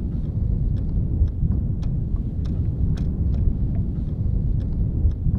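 Low, steady wind rumble on an outdoor microphone, with scattered small clicks and ticks.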